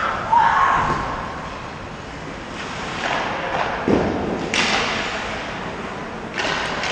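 Ice hockey in an arena: several sudden thuds and knocks, the sharpest about a third of a second in and another near the middle, echoing through the large rink over its steady background.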